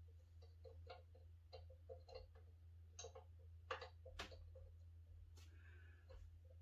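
Faint, quick, even ticking, about three or four a second, over a low steady hum. A few louder sharp clicks and knocks from the parts being handled come in about halfway through.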